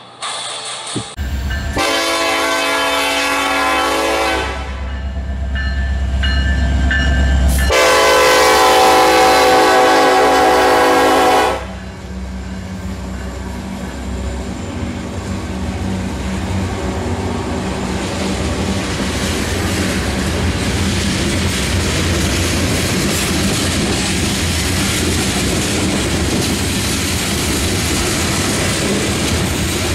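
Diesel freight locomotive horn sounding two long blasts over a deep rumble of the passing locomotives. Then a grain train's covered hopper cars roll past with steady wheel-on-rail noise.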